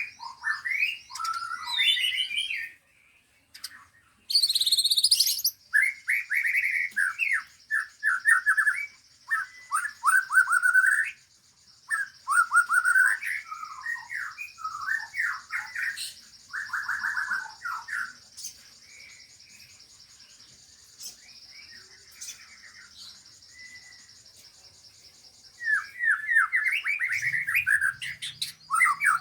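Songbirds at a bird-song training session singing in bursts of rapid chirps and fast trills, a few seconds at a time with short gaps, over a steady high buzz that stops near the end.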